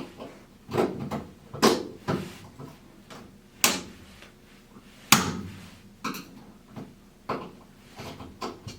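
Irregular knocks and clunks of washing-machine parts and panels being handled during disassembly, about a dozen in all, the loudest about two, three and a half, and five seconds in.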